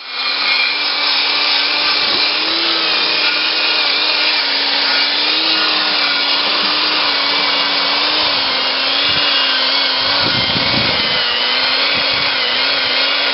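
1953 Massey-Harris Pony tractor running steadily, a continuous mechanical din with a steady hum that wavers slightly in pitch.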